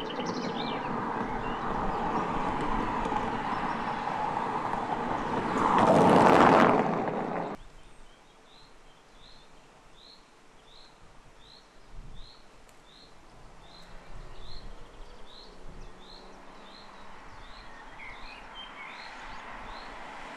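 BMW 6 Series Coupé (F13) driving through a tunnel toward and past the camera, its engine and tyre noise swelling to a peak about six seconds in and cutting off suddenly. After that a bird chirps over and over at an even pace, about one chirp every half second, while the car's noise grows again near the end as it approaches.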